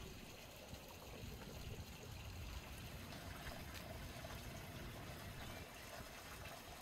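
Faint, steady rushing background noise, like running water, with a few faint ticks.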